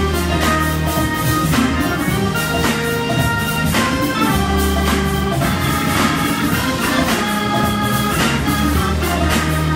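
Live band playing, led by a Hammond B3 organ with electric guitar and drums; low bass notes are held for about a second at a time, returning every few seconds.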